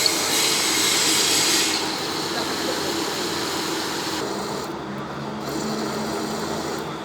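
A workshop machine runs steadily with a hissing, scraping cutting noise on metal, which eases off about two seconds in while the machine's hum carries on.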